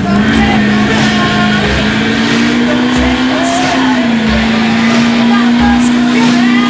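2006 Duramax 6.6-litre V8 turbodiesel pickup running at high revs under full load while pulling a sled. Its note holds steady, climbs slightly, then drops a little about four seconds in.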